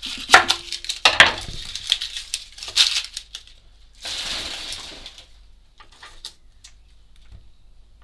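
Kitchen knife cutting the ends off an onion and knocking sharply on a wooden cutting board, three loud knocks in the first few seconds. About four seconds in there is a second-long dry rustle, then a few faint taps.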